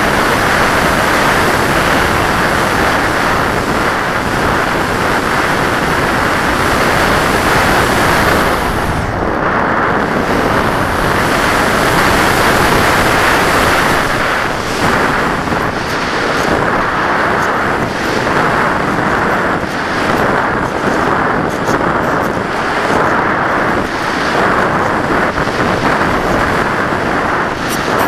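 Loud rushing wind over the microphone of an action camera mounted on a flying RC model plane, a dense roar of airflow that wavers with gusts from about halfway through as the plane banks and dives low.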